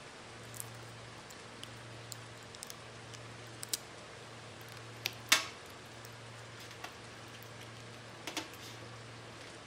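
Small plastic clicks and taps as jelly gouache cups are pulled out of a plastic palette case and set down, about ten in all, the loudest a little past five seconds in. A steady low hum runs underneath.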